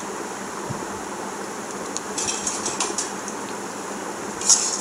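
Steady, even rushing hiss of kitchen background noise.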